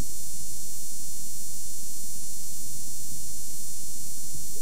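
Steady buzzing hum and hiss of an old home-video soundtrack, with no distinct event.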